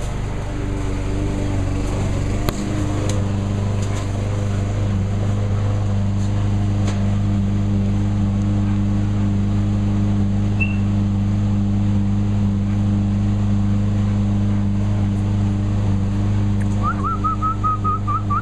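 Steady low machine hum of even, unchanging tones. Near the end a short wavering high whistle.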